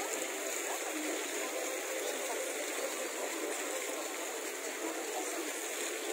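Steady splashing of promenade fountain jets, an even rushing of falling water.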